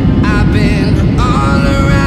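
An upbeat pop song with a sung melody plays over a loud, steady, low rumble of airliner cabin noise from a Boeing 737 MAX on its descent.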